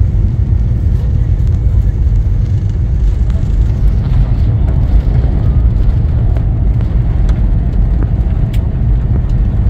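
Steady low rumble of an airliner's cabin noise: jet engines and airflow heard from inside the passenger cabin during the approach to landing.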